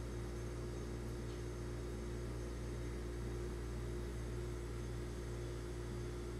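Electric hair clipper with a 1.5 guard running with a steady hum as it is passed through short hair on the back of the head.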